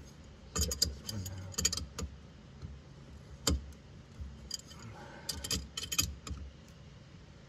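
Small metal clicks and clinks of nuts and a wheel-spacer adapter being handled on the wheel studs of a golf cart's brake drum hub. They come in two quick clusters, with one sharper single click in between.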